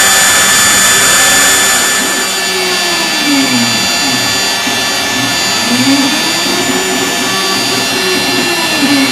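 LnV-CnC R250-3 CNC router running with a steady high spindle whine, milling a wax ring model; the cutting noise is fuller for about the first two seconds. Later a lower whine rises and falls in pitch twice.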